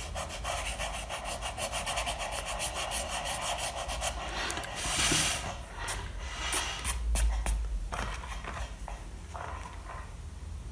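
Eraser rubbing pencil lines off paper in quick back-and-forth strokes for about four seconds, then a short louder swish about halfway through, followed by a few light taps.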